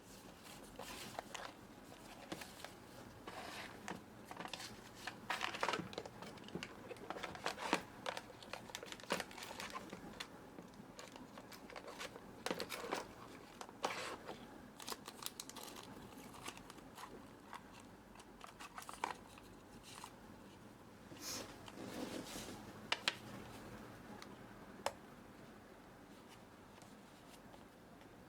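Blind-box packaging being opened by hand: irregular crinkling and tearing of plastic wrap, with scattered sharp rustles and clicks.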